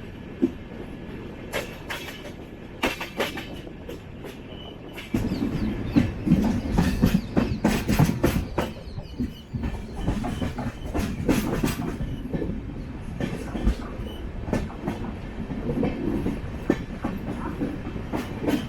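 Passenger train running along the track: a steady low rumble with the wheels clacking over rail joints. The rumble gets suddenly louder about five seconds in.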